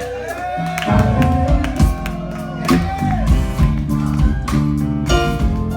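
Live blues band playing an instrumental passage between sung lines: a lead guitar plays bent notes over bass and a steady drum beat.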